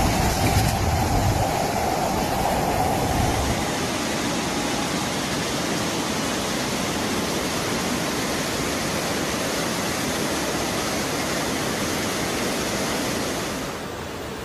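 Floodwater rushing in a torrent through a town street: a steady wash of water noise, heavier and louder in the first few seconds and dropping a little near the end.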